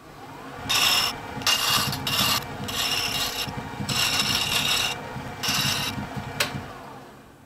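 A chisel cuts a spinning wooden toy wheel on a wood lathe in about six short scraping passes, rounding over the wheel's outside edges. The lathe motor hums steadily underneath and winds down near the end.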